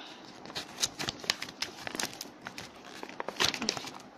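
Packing paper crinkling and crackling as hands rummage through a cardboard box, in an irregular run of sharp crackles, loudest about three and a half seconds in.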